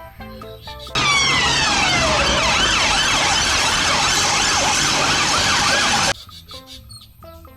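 Loud siren-like sound effect: many overlapping wailing tones sliding up and down over a hiss, one long falling sweep at its start, cutting in abruptly about a second in and cutting off about five seconds later.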